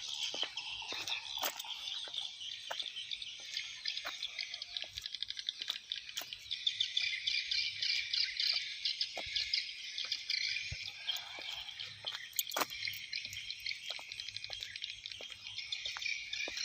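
Dense, continuous twittering of swiftlets: rapid high chirps and trills overlapping throughout, with scattered sharp clicks.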